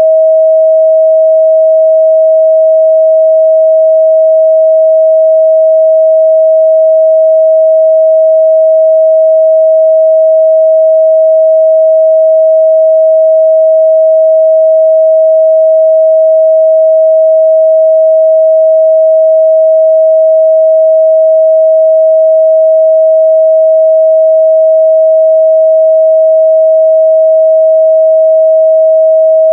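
A pure 638 Hz sine-wave test tone, held loud and unchanging at one pitch, used to check a speaker's or headphones' midrange response.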